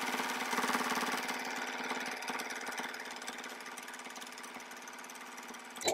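Electric sewing machine running steadily as it top-stitches along the edge of folded cotton fabric, the rapid needle strokes gradually getting quieter and stopping at the end.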